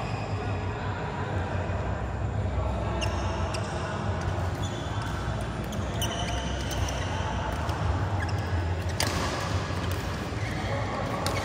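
Badminton rallies: sharp cracks of rackets striking the shuttlecock, the loudest about nine seconds in and another near the end, with short squeaks of court shoes on the mat, over a steady low hum and distant voices in a large echoing hall.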